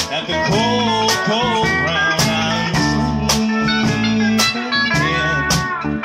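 Country band playing an instrumental passage: a pedal steel guitar gliding and bending between notes over strummed acoustic guitar, bass and drums with a steady beat of snare and cymbal hits.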